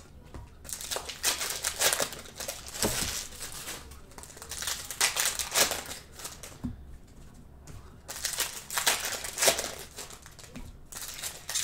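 Wrapped trading card packs being handled and pulled out of their boxes, crinkling in irregular bursts with a quieter pause a little past the middle.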